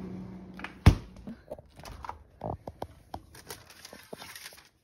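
Baking tray being pushed into a packed freezer: a sharp knock about a second in, then a run of light knocks and clatters as the tray and the packages on the shelf bump together. A steady low hum cuts off just after the first knock.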